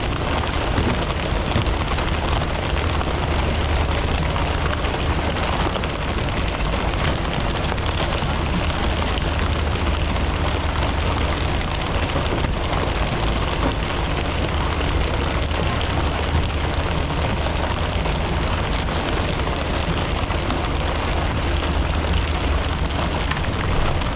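Fishing boat's engine running steadily, a low continuous rumble under a dense hiss of water and wind.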